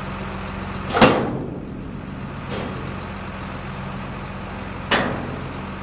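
Farm machinery engine running steadily at constant speed, with a loud sharp knock about a second in, a softer one shortly after, and another sharp knock near the end.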